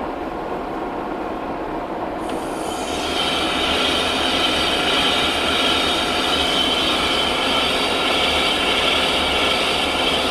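Metal lathe running steadily, then, a little over two seconds in, a brazed tool bit bites into the workpiece's outside diameter on a 0.100-inch-deep roughing cut. A steady high cutting hiss joins and holds to the end.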